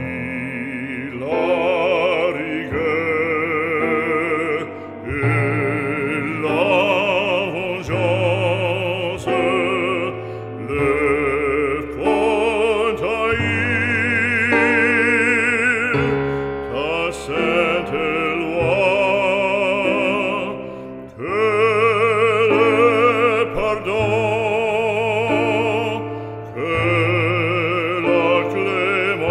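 Operatic singing with strong vibrato over orchestral accompaniment: a classical vocal piece, long held notes changing every second or two.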